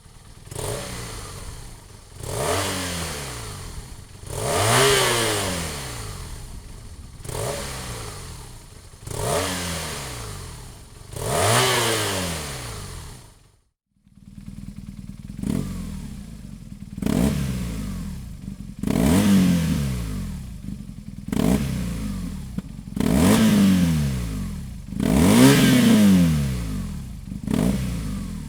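BMW R 1200 RT boxer-twin engine through a Dominator aftermarket muffler, revved again and again in short blips, each rising and falling back to idle about every two seconds. The sound cuts out briefly about halfway, after which the idle between blips is louder.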